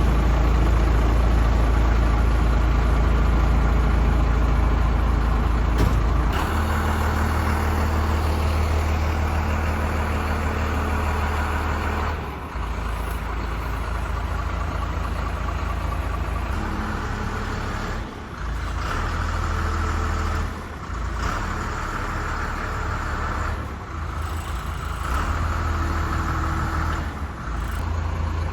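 Large vehicle engine running with a steady low rumble, most likely a truck. The sound shifts abruptly every few seconds.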